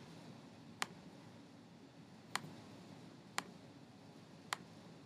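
Four sharp, single clicks of a computer mouse button, about a second apart, over faint room hiss; each click selects another edge of a model in CAD software.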